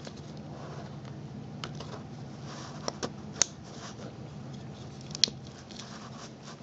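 A few light clicks and taps of hands refitting the transmission speed sensor's wiring connector, over a steady low hum.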